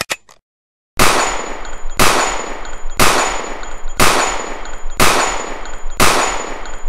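Six single gunshots, one a second, each trailing off in a long echo with a thin high ring after it. A few quick clicks come just before the first shot.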